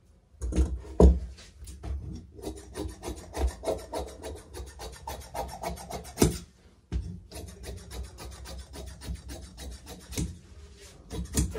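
Tailor's shears cutting blouse fabric on a cutting table: a quick run of blade snips with the blades scraping across the tabletop, pausing briefly twice, with a few louder knocks.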